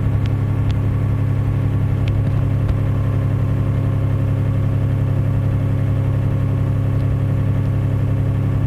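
Compact diesel equipment engine running steadily at a constant speed, with a few light clicks in the first two seconds.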